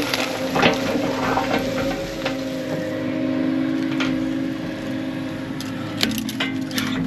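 Diesel engine of heavy brush-clearing equipment running steadily under load, with a few sharp cracks and snaps of breaking brush and wood.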